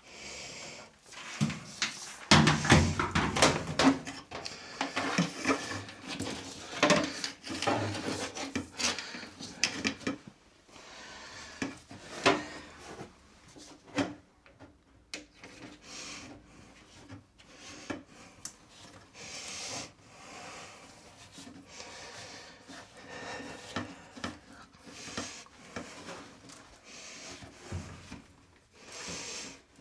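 Handling noise at the dryer vent duct: irregular rubbing, scraping and knocks. It is busiest and loudest in the first ten seconds, then thins to occasional scrapes and taps.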